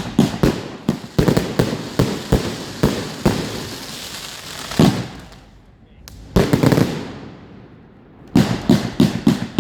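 A 245-shot firework cake firing in rapid volleys, sharp reports coming about five a second. Midway it slows to a few single bangs and a longer crackling burst with a short lull, then rapid firing starts again near the end.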